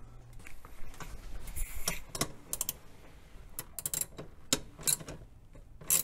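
Hand-tool work on engine-bay fasteners: a string of irregular sharp metal clicks and rattles, some in quick clusters, as the air cleaner assembly's 10 mm bolt and fittings are worked loose.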